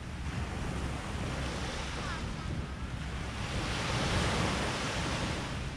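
Sea waves washing onto a sandy beach, with one wave swelling and breaking about four seconds in, and a low wind rumble on the microphone.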